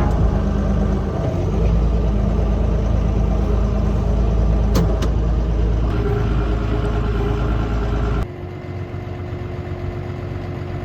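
Heavy vehicle engine running steadily with a deep drone and two brief clicks about five seconds in; about eight seconds in the sound drops suddenly to a quieter, steadier engine hum.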